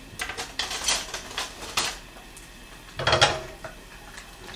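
Kitchen utensils and a frying pan clattering: a run of sharp clinks and taps, then a heavier clunk about three seconds in as the pan on the gas hob is handled and a utensil goes in to break up the frying eggs.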